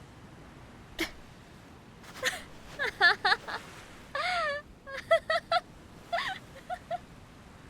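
A young woman's voice laughing in several quick runs of short, high-pitched giggles, after a single sharp click about a second in.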